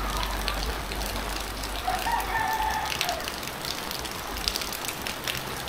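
A rooster crows once, a held call of about a second starting about two seconds in, over a steady patter of rain and dripping water.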